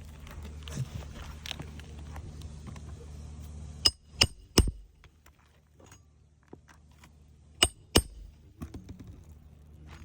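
Hammer driving roofing nails: three sharp, ringing strikes about a third of a second apart, then two more a few seconds later. A steady low rumble runs underneath until just before the first strike.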